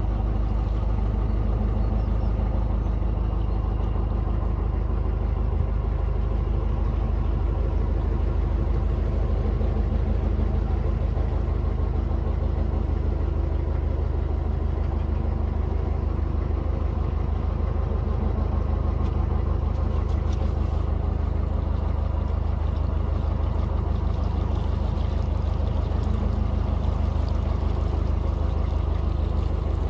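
Narrowboat's diesel engine running steadily at a gentle cruising pace, a constant low throb.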